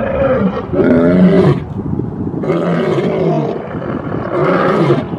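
Two male lions roaring: a string of roars about a second apart, with a short pause near the middle.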